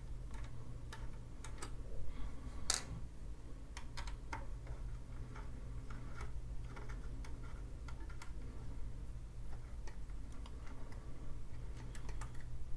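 Hex key turning out the small screws on a metal enclosure back panel: irregular light metallic clicks and ticks, one sharper click about three seconds in.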